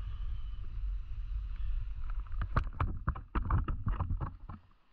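Wind rumbling on the microphone, with a quick irregular run of small clicks and knocks in the second half that cuts off abruptly.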